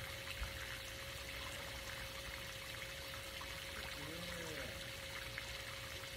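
Pool fountain jet splashing steadily into the pool water, with a faint steady hum underneath. A short rising-and-falling call sounds briefly about four seconds in.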